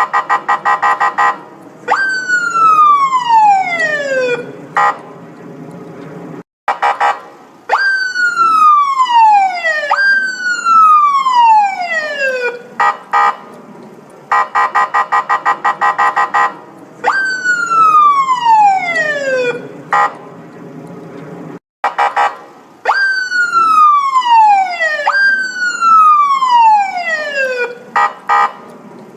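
Police siren cycling between a rapid pulsing tone and long falling wails, each wail dropping steeply in pitch over about two seconds. The sequence repeats about halfway through, with two brief moments of silence.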